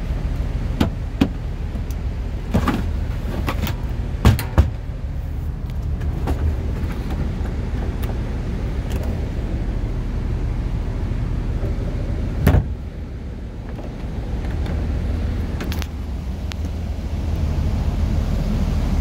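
A coach's engine idling with a steady low hum inside the cabin, with a few sharp knocks and clicks from handling inside the bus, the loudest about four and a half seconds and twelve and a half seconds in.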